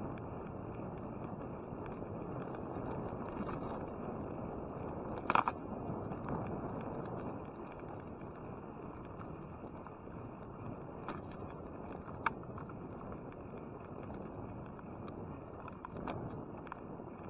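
Bicycle riding along a paved path: a steady rush of tyre and wind noise, with a few small rattles and clicks from the bike and camera mount. The loudest click comes about five seconds in.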